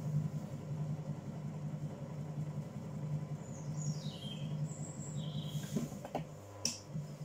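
Electric potter's wheel running with a steady, evenly pulsing low hum, a bowl turning on it for trimming. A few short falling bird chirps come about halfway through, and a single sharp click near the end.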